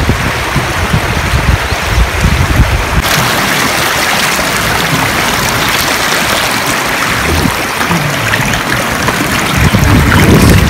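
Shallow mountain stream running and babbling over stones close to the microphone, a steady rush of water that grows stronger about three seconds in. A low rumble sits under it at the start and again near the end.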